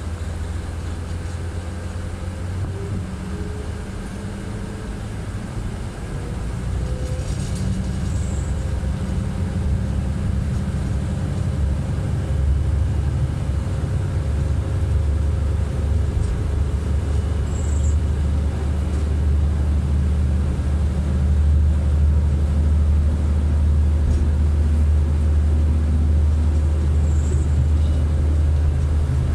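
Kanto Railway KiHa 310 diesel railcar running, heard from inside its rear cab: a steady low engine and running hum. It grows louder about six seconds in as the railcar pulls out and gathers speed.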